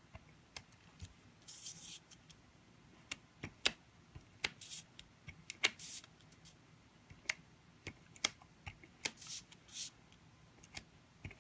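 Hands handling card stock and running a handheld adhesive applicator along it: faint scattered clicks and taps, with a few short scratchy swipes.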